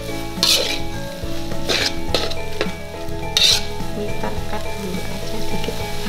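Metal slotted spatula scraping and turning fried noodles in an aluminium wok, with sizzling from the hot pan. A few short scrapes come irregularly, about a second or more apart.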